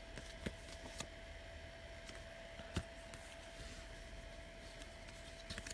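Quiet room tone with a faint steady hum and a few light clicks and taps from small items being handled.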